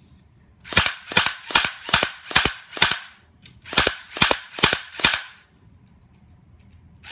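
H&K P30 electric airsoft pistol firing single shots in quick succession: about ten sharp cracks, roughly two and a half a second, with a brief break midway.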